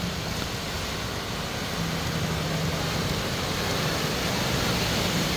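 A Maruti Suzuki Swift hatchback driving through deep floodwater, its tyres and body pushing up a steady rush of splashing water. A low engine hum comes in about two seconds in and grows louder as the car approaches.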